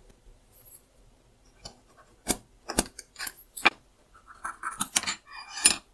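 Sharp clicks and light knocks of a small wooden try square with a steel blade and a steel ruler being set against a wooden workpiece, then scratching as a line is marked along the steel blade. The scratching is densest near the end.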